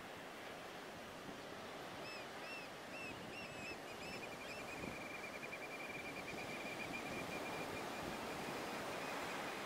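Waves breaking steadily on a sand beach. A small bird sings over them: a few short rising-and-falling chirps about two seconds in, then a rapid, even trill at one pitch held for several seconds.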